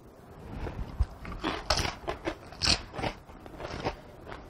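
Tortilla chips crunching as they are bitten and chewed: an irregular series of crisp crunches beginning about a second in.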